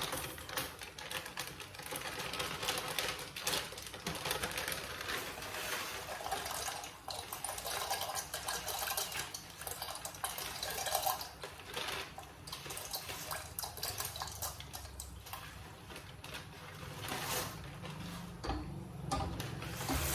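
Kitchen handling sounds as uncooked macaroni goes into a pot of water: water sloshing with many scattered small clicks and clatters.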